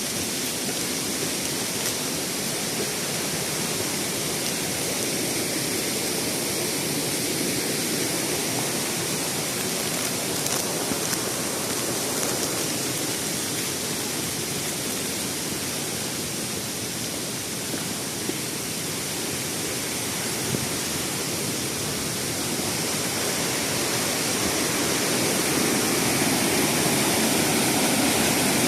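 Waterfall pouring: a steady rush of falling water, growing a little louder near the end.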